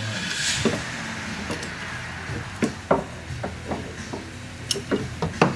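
A run of light, irregular clicks and knocks from hand-tool work, several a second in the second half, over a low steady hum.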